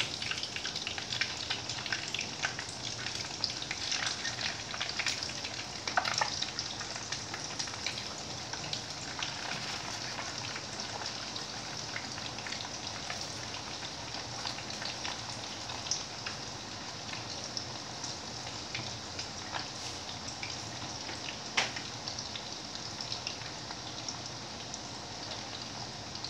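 Pork meat patties frying in hot oil in a frying pan: a steady sizzle with many small crackles and a few sharper pops, the loudest about two thirds of the way through.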